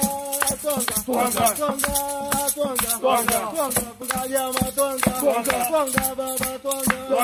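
A group of men sings a Swahili coffee song in chorus, with hand-held shakers rattling and a long wooden pestle thudding into a mortar in a steady beat as coffee beans are pounded to loosen their husks.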